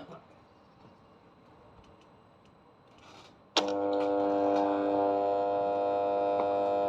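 Electric lawn mower motor with a burnt-out winding switched on about three and a half seconds in: it starts abruptly into a loud, steady mains hum that holds without rising in pitch, the sign of a failed, shorting winding.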